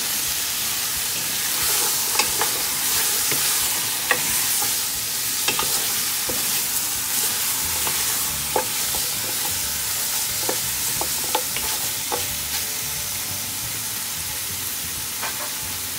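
Beef shanks with onions sizzling steadily as they brown in a metal stock pot, while a wooden spoon turns them with scattered knocks and scrapes against the meat, bones and pot. The knocks thin out over the last few seconds as the sizzle goes on.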